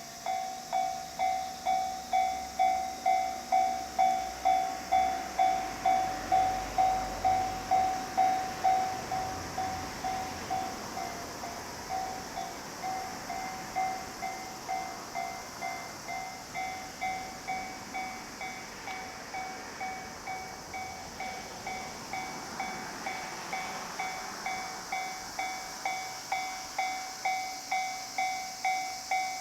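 Level-crossing warning bell ringing steadily, about two strokes a second. It is joined about five seconds in by the rushing sound of a JR E531 series electric train passing over the crossing at high speed.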